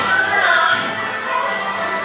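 Shanghai opera (Huju) music, a melody with sliding pitches.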